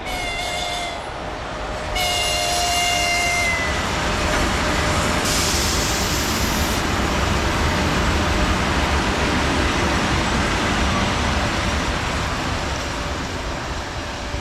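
2ES6 Sinara electric locomotive sounding its horn twice, a short blast and then a longer one of about a second and a half. The loud, steady rumble of the locomotive and its freight wagons running past on the rails follows, with a brief hiss about five seconds in.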